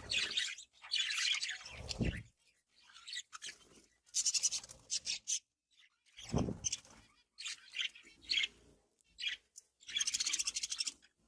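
Budgerigars chattering and chirping in bursts of quick, overlapping calls with short pauses between, with a couple of low thumps about two and six seconds in.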